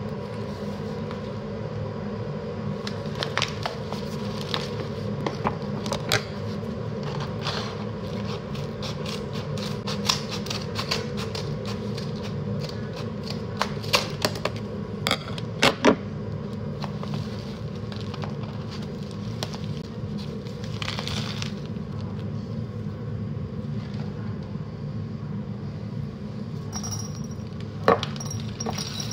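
Stiff kraft paper tea bag crinkling and rustling as it is handled, then scissors snipping through the paper top about halfway through, with a run of sharp clicks. One sharp knock near the end, over a steady low hum.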